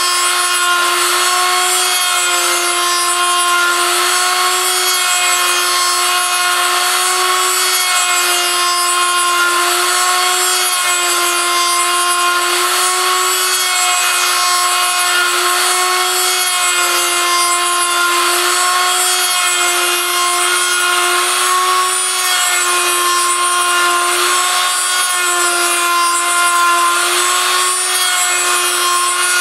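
A homemade copy milling machine at work: a rotary tool's cutter mills a turning wooden wobbler blank. The motor gives a steady high whine that wavers slightly in pitch, over a rasping cutting noise.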